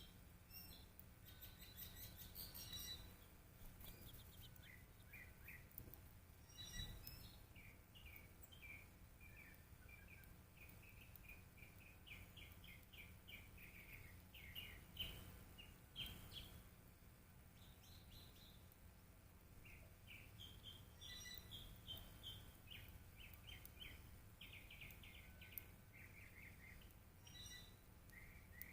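Faint chirping of small songbirds: quick runs of short, high notes repeated throughout, with a few brief clicks and a low steady rumble underneath.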